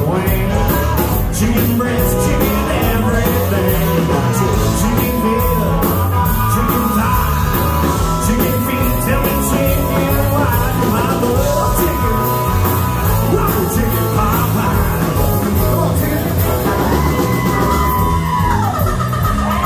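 A live rock band playing in a bar: singing over electric guitar, bass and drums, with saxophone and harmonica lines. Held, bending notes sound above a steady beat.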